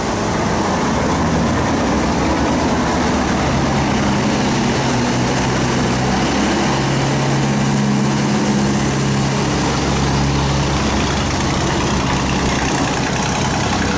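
Engines of wooden river cargo boats running as they pass close by: a steady low hum whose pitch shifts a few times. Under it is the constant rush of churning water through the sluice gate.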